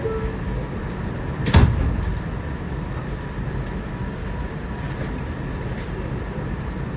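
A New York City Transit R211A subway car running between stations, heard from inside, with a steady low rumble of wheels on track. There is one sharp clank about a second and a half in.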